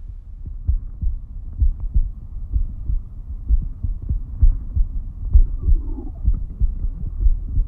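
Muffled low thumping pulses, several a second and uneven in strength, over a dull hum, with a faint wavering tone near the middle.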